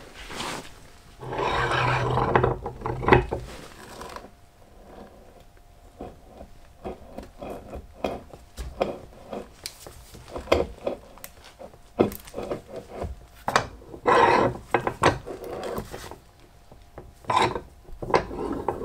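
Keyway broach being pushed through a model-engine flywheel's bore with an arbor press, cutting a 3/32 in keyway: a rasping scrape about a second in lasting some three seconds, then scattered clicks and knocks, and two more shorter scraping pushes near the end.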